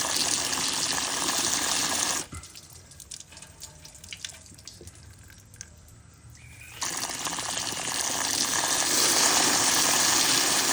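Garden hose spraying water into a truck's air-conditioning drain to flush out the black debris clogging it: a steady rushing spray that cuts off suddenly about two seconds in, a quieter gap with faint ticks, then the spray again from about seven seconds in, cut off suddenly near the end.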